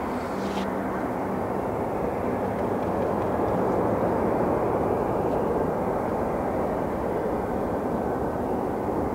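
Airbus A340-300 airliner rolling out on the runway after touchdown, its four CFM56 jet engines giving a steady rumble that swells slightly a few seconds in.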